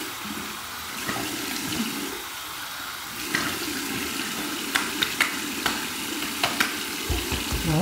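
Bathroom faucet running into a sink while cupped handfuls of water are splashed onto the face, with several sharp splashes in the second half.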